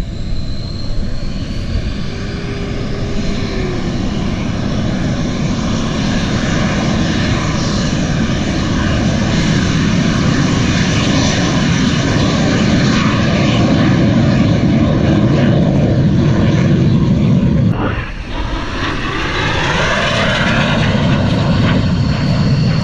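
Lockheed T-33 Shooting Star's single turbojet engine running, a loud steady roar with a faint whine that grows louder over the first dozen seconds. It breaks off briefly near the end and then resumes.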